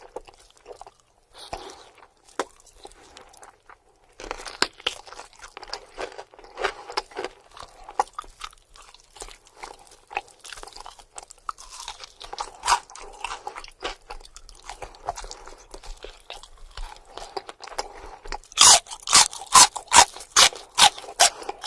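Close-miked chewing and crunching of spicy buffalo wings: scattered crisp crunches and chewing, then a run of loud, sharp crunching bites about three a second near the end.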